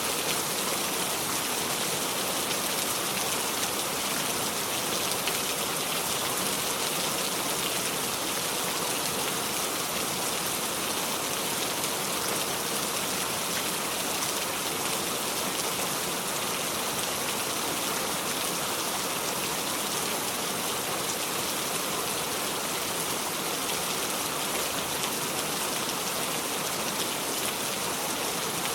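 Steady heavy rain, an even hiss strongest in the high range with no thunder.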